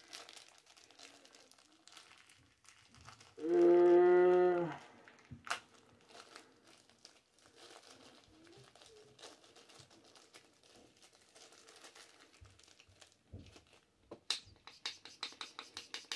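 Thin plastic packaging crinkling and crackling as small accessories are picked out of their bags by hand. A few seconds in, a steady hummed note lasts about a second and is the loudest sound. Near the end comes a quick run of clicks.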